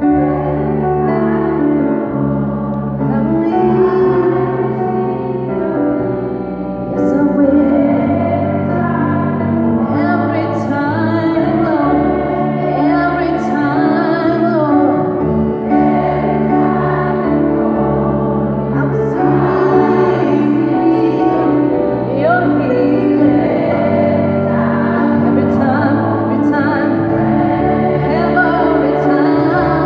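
Gospel song performed live: a female soloist sings into a microphone over keyboard accompaniment, with a choir behind her.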